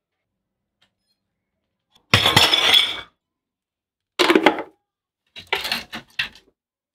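Three short bursts of clattering handling noise from household objects, the last one a cluster of quick clinks.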